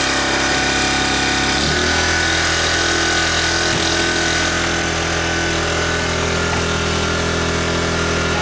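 Parkside PGI 1200 B2 inverter generator engine running steadily. About two seconds in its note changes and then holds at the new speed, as the eco switch changes the engine speed.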